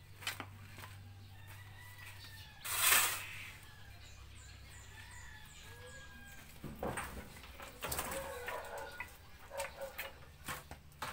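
A shovel scraping and knocking against wet cement mix as it is spread over a concrete stove top. There is one loud scrape about three seconds in, then a run of shorter scrapes and knocks in the second half.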